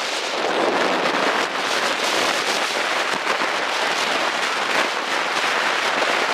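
Steady, loud crackling hiss of blizzard wind and driven snow on the microphone.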